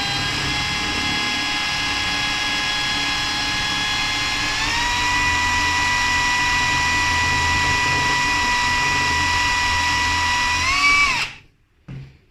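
Bosch GSB 18V-150 C cordless drill's brushless motor running under load while drilling, a steady whine that steps up in pitch about four and a half seconds in. It revs up briefly and winds down to a stop near the end.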